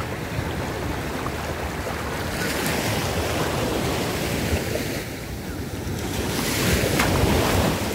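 Sea waves washing around the camera, with wind rumbling on the microphone. The surf swells twice, about a third of the way in and more loudly near the end.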